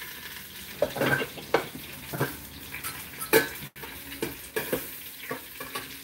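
Stainless steel cookware lid and pot being handled: a series of metallic clinks and knocks as the lid is lifted off and moved against the pot rim, the loudest about three and a half seconds in, over a steady hiss.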